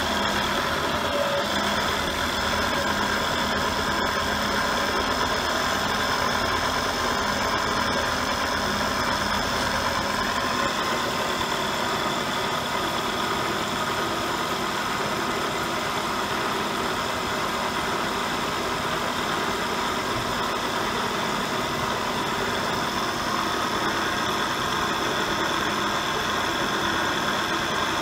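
Hartford vertical milling machine running steadily, its spindle motor and head giving a constant hum made of several steady tones.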